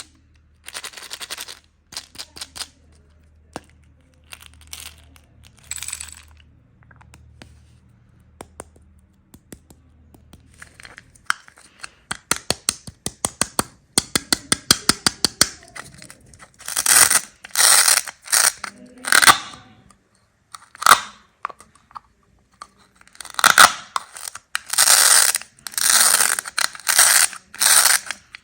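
Hard candies handled in small plastic toy bathtubs: a few soft scrapes, then a quick run of many sharp clicks like small candies clattering together, then loud repeated scraping and crunching strokes.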